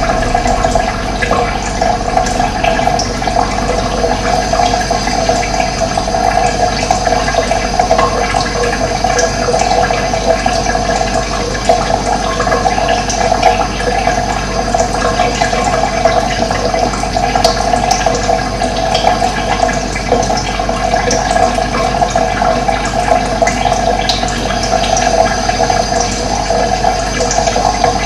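Running water flowing steadily, a continuous rushing and gurgling, with faint occasional bird chirps above it.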